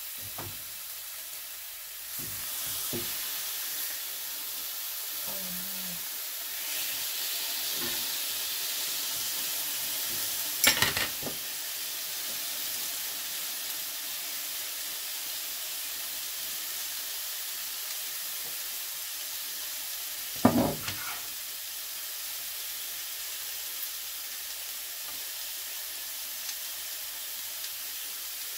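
Chops sizzling steadily in a frying pan, the sizzle getting louder about two seconds in. Two sharp knocks stand out, one about a third of the way in and one about two-thirds in.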